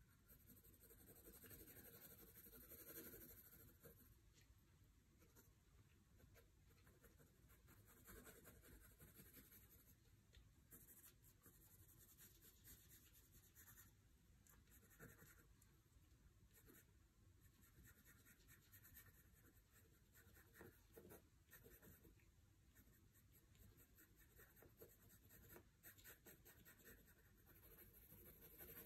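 Faint scratching of a graphite pencil sketching on sketchbook paper, in short, irregular strokes.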